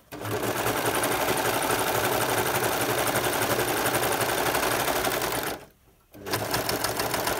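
Overlocker (serger) running at speed, stitching along the edge of a fabric-covered foam mat. It stops for about half a second some five and a half seconds in, then starts again.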